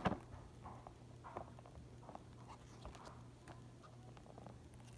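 Handling noise: a sharp knock right at the start, then faint scattered taps and rustles over a low steady hum.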